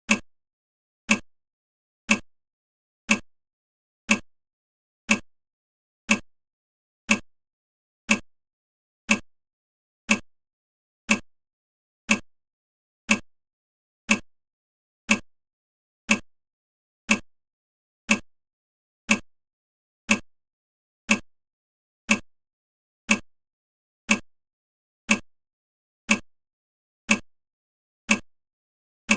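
Countdown timer ticking: one short, sharp tick every second, evenly spaced and alike.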